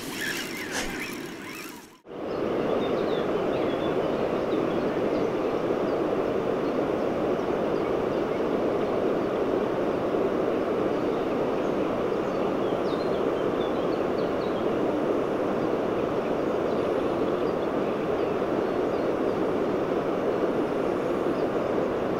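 Brief rustling and clicking of a spinning rod and reel being handled during a cast, then a steady rushing of fast-flowing river water with faint bird chirps above it.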